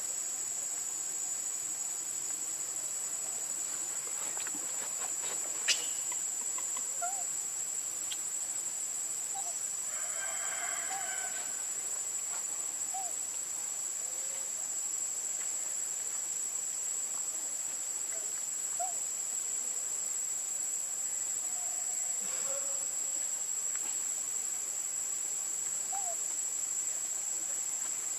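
Steady high-pitched drone of insects calling. A single sharp click about six seconds in, a brief faint call around ten seconds in, and a few faint short chirps scattered through.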